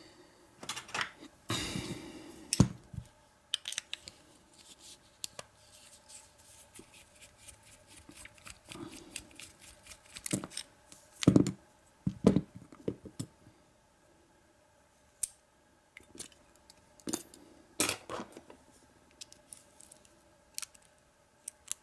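Scattered metal clicks, taps and short scrapes as an American Lock 1100 padlock is taken apart with a screwdriver and its brass pin-tumbler cylinder is handled. There is a brief scraping about 2 s in, and a few louder knocks near the middle and again near the end.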